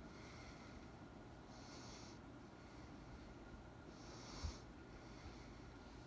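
Quiet breathing through the nose: two soft, hissy breaths a couple of seconds apart over low room hiss, with a faint low bump near the second one.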